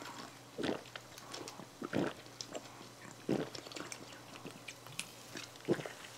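A person gulping cola from a plastic bottle: swallows about every second and a quarter, with a weaker one near the end.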